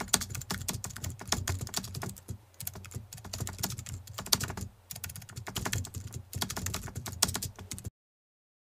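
Typing sound effect: rapid, irregular key clicks in three runs with brief pauses between them, cutting off abruptly near the end.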